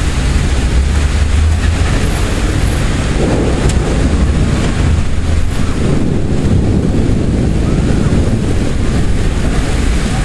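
Strong wind and heavy rain of a severe thunderstorm: a steady rushing noise with wind buffeting the microphone in a low rumble.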